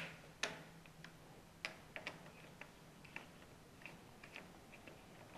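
Faint, irregular metallic clicks of a hand tool threading in the bolt of a Harley-Davidson twin cam's hydraulic cam chain tensioner, about a dozen ticks spread unevenly over a few seconds.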